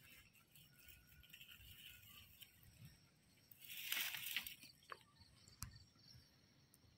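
Near silence with faint scattered clicks, broken about four seconds in by a brief rustling scuffle lasting about a second.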